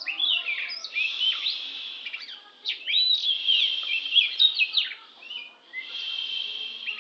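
Oriental magpie-robin (kacer) singing a rapid, varied run of clear whistles and rising and falling slurred notes, with a longer held whistle near the end.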